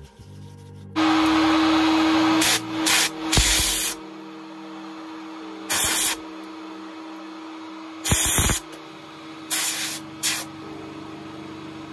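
Small compressed-air spray gun hissing as it sprays a wooden piece: one long burst about a second in, then a string of short bursts. A steady low hum runs underneath.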